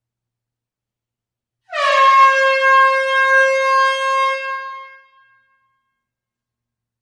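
A single long horn blast that drops slightly in pitch as it starts. It holds steady for about three seconds, then fades out.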